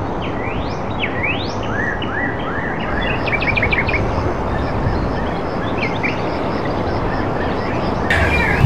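Birds chirping with short rising and arching calls, including a quick run of notes about three seconds in, over a steady background hiss.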